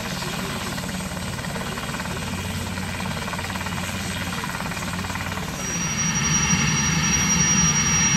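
Syton AH130 ultralight helicopter, powered by a Solar T62 turbine, heard from a distance with its rotor beating steadily as it moves low over the ground. About five and a half seconds in the sound jumps louder and closer, with a steady high turbine whine over the rotor noise.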